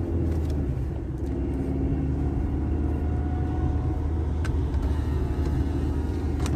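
Steady low drone of a car's engine and tyres heard from inside the cabin while driving.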